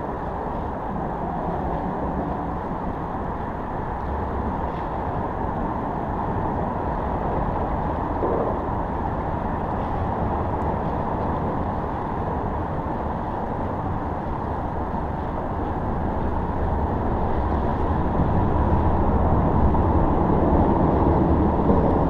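Steady rumble of road traffic crossing the highway bridge overhead, growing louder near the end.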